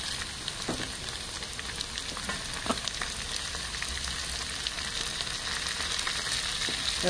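Hot oil sizzling steadily in a wok as fresh Sichuan peppercorns fry with minced garlic and ginger, with a few light clicks and pops.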